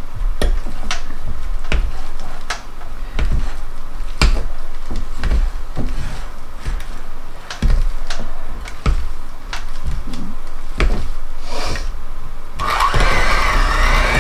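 Handheld electric mixer running, its beaters churning soft goat cheese (chèvre) in a bowl, with frequent irregular knocks of the beaters against the bowl. Background music comes in near the end.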